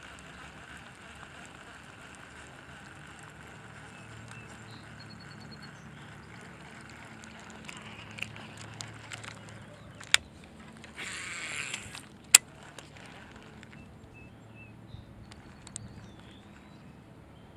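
Baitcasting reel on a cast: a sharp click, then about a second of whirring as the spool pays out line, then a loud snap as the reel re-engages. Faint ticks and a low steady hum in the background.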